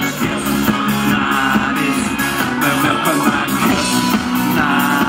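Live pop-rock band playing an instrumental passage with electric guitars, bass, drums and keyboard over a steady beat.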